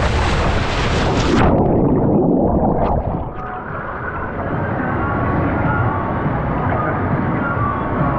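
Rushing water and air at the end of a plunge water slide, then the splash into the pool. The sound turns suddenly muffled and gurgling underwater for a couple of seconds before the watery sloshing of the pool comes back.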